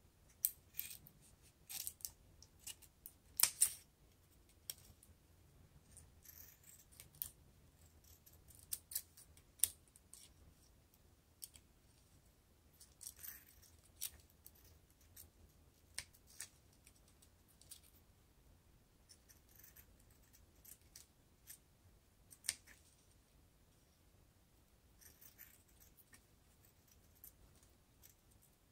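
Scissors snipping a plastic drinking straw lengthwise into thin strips: a run of short, irregular sharp snips and clicks, busiest in the first few seconds.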